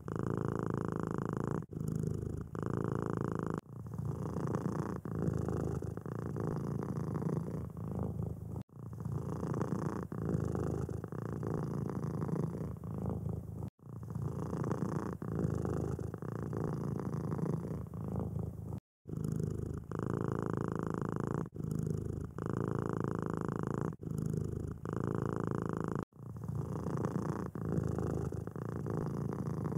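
Domestic cats purring steadily. The purr breaks off abruptly about five times as one cat's purr gives way to another's.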